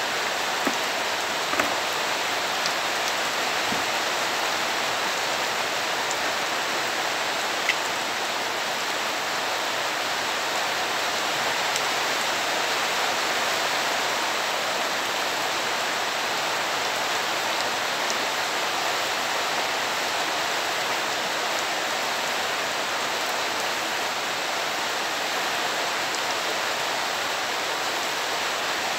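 Steady rain falling on a wet, muddy yard and its puddles, an even hiss with a few light taps in the first several seconds.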